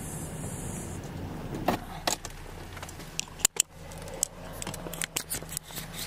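Clicks, knocks and rattles of a hand working switches and controls inside a patrol car, over the steady low hum of the idling car. The sharpest pair of clicks comes about three and a half seconds in.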